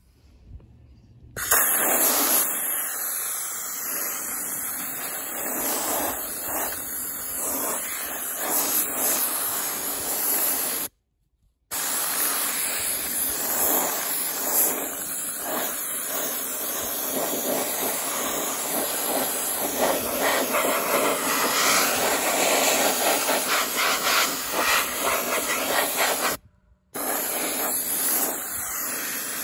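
Harbor Freight gravity-feed handheld soda blaster spraying regular baking soda onto a steel trailer wheel: a steady, loud hiss of compressed air and blasting media. It starts about a second and a half in and stops abruptly twice for about a second.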